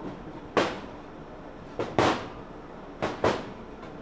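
Metal cylinder of a Columbia two-stroke golf cart engine knocking and clunking about five times as it is rocked and tugged by hand. The piston is seized tight in the cylinder, so the cylinder barely moves.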